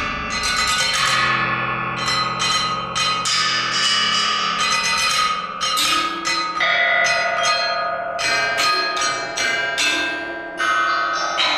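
Contemporary chamber music: a run of bell-like metallic strokes, about two or three a second, ringing over held lower tones that shift about halfway through and again near the end.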